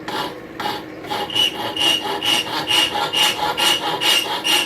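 Hand file being worked back and forth over the tip of a forged steel hook to rasp off a faulty end, about two strokes a second. From about a second in, each stroke gives a high squeak, like nails on a chalkboard.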